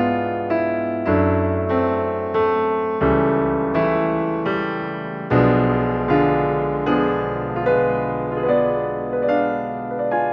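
Background piano music, a slow, gentle melody with notes struck about twice a second.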